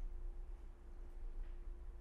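Quiet room tone: a low steady hum with a faint steady higher tone over it.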